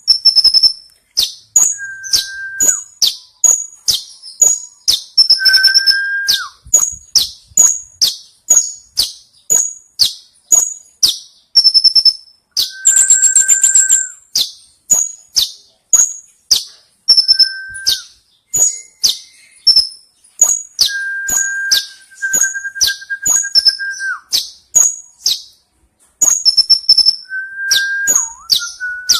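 Kolibri ninja sunbird singing in full song: a rapid run of sharp, high chips and downward-sweeping notes, about two a second, broken now and then by a lower, level whistled note held for up to a second or two that slurs down at its end.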